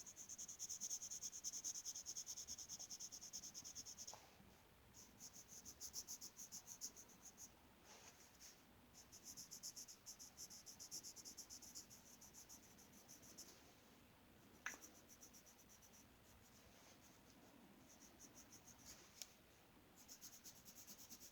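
Colored pencil shading on paper: faint, rapid back-and-forth scratching strokes in runs with brief pauses. There is a single light tick about two-thirds of the way through.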